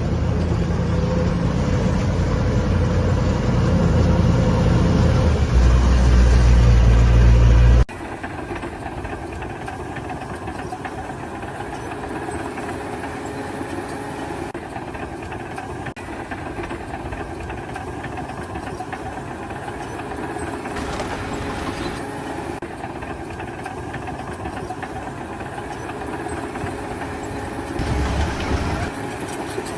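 A loud, steady, low engine rumble that cuts off abruptly about eight seconds in, followed by a quieter, steady engine-like mechanical noise.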